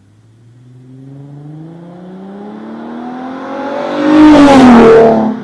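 A car accelerating hard past, its engine note climbing steadily in pitch and growing louder, loudest about four seconds in, then dropping in pitch as it goes by and fades.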